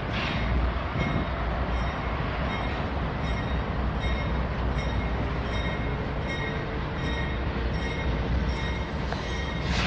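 Norfolk Southern diesel-electric freight locomotive rumbling slowly past at the head of a mixed freight train, its locomotive bell ringing steadily over the engine. A brief hiss flares up right at the start and again near the end.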